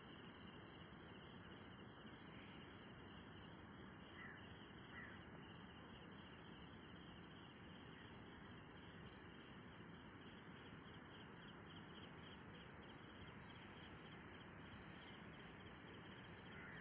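Faint chorus of crickets: several steady high-pitched trills running together, one of them in rapid, even pulses, over a low hiss.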